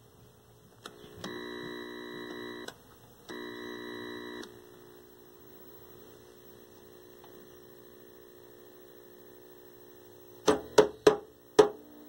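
A buzz with several steady pitches from the Admiral PK1369 tube TV sounds twice, for about a second and a half each time with a short break between, over a faint steady hum. Near the end come five sharp knocks in quick succession, each with a short ring.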